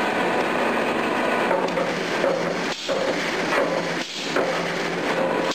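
Steady clattering machine noise from a refractory-brick screw press running, with a faint hum underneath and brief dips about three and four seconds in.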